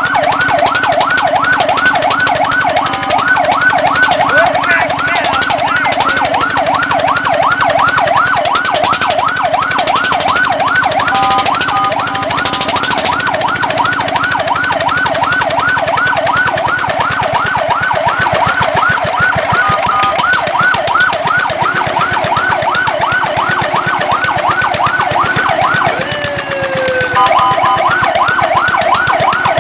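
Fire truck siren on a fast yelp, rapid rising sweeps repeating several times a second. It is broken twice by a few seconds of steady tones.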